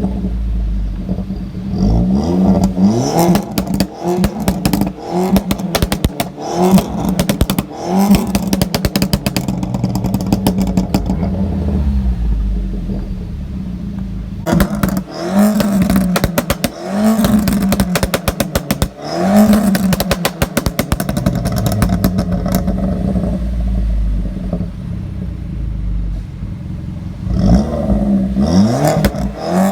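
Straight-piped Volkswagen Scirocco exhaust, revved in repeated short blips from idle, each drop in revs followed by a rapid run of pops and crackles. Between bursts it settles to a steady idle, with quieter idling stretches about halfway through and again before a last round of revs near the end.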